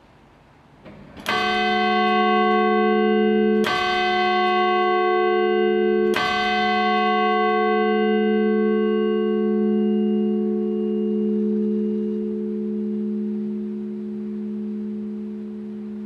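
A large cast-steel church bell, cast by Bochumer Verein, is struck three times about two and a half seconds apart. After the last stroke it rings out, its high partials fading within a few seconds while its low hum lingers.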